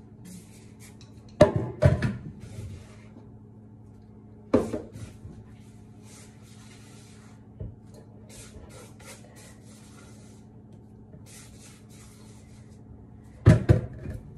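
Kitchen utensils being handled at a sink: sharp knocks near the start and again a few seconds later, with quieter rustling and scraping between. Near the end a clay mortar is set down into the stainless steel sink with a loud cluster of knocks.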